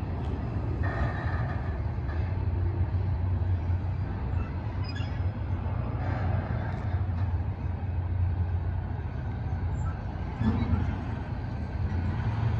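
Double-stack intermodal freight train rolling slowly past on the overpass: a steady low rumble of wheels on rail from the passing well cars as the train slows.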